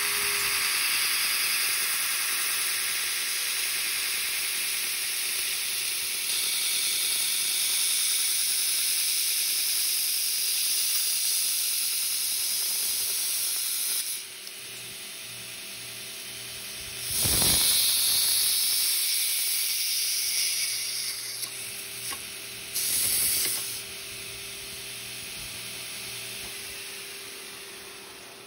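Belt sander with a 36-grit ceramic abrasive belt grinding down a Nokia 3220 mobile phone, a steady harsh hissing grind over the motor's hum. About halfway through the grinding drops off, two short louder bursts of grinding follow, and the sound dies away near the end.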